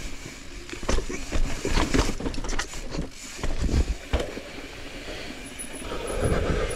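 Mountain bike riding over rock: tyres and frame knocking and rattling as it drops over ledges, with several sharp knocks over a steady rough rumble.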